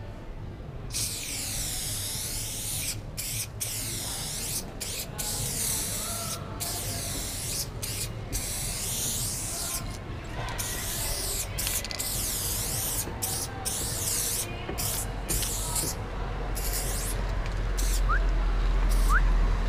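Aerosol spray paint can hissing as paint is sprayed onto a wall, in long bursts broken by many brief pauses, starting about a second in. A low rumble rises near the end.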